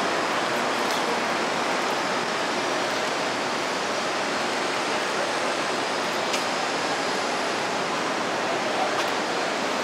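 Steady, even rushing noise of a city street as a Seagrave fire ladder truck rolls slowly up to the curb with its diesel engine running, no siren.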